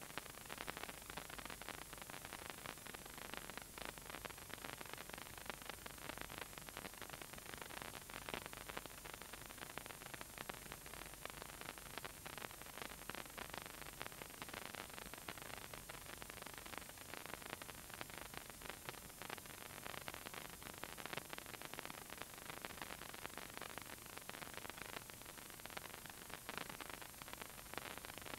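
Faint steady hiss with dense small crackles and rustles throughout; nothing else stands out.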